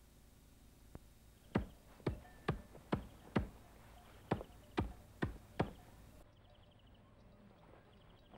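A short-handled blade chopping into a wooden branch in sharp, evenly spaced blows. There are five strokes about half a second apart starting about one and a half seconds in, then a brief pause, then four more.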